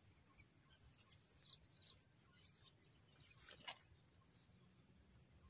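Steady high-pitched drone of an insect chorus, with scattered faint bird chirps and a single short click about three and a half seconds in.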